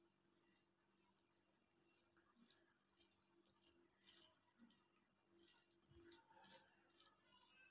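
Faint, irregular wet squishes and ticks of fingers mashing and mixing rice with cabbage-and-potato curry on a steel plate, several a second, over a faint steady hum.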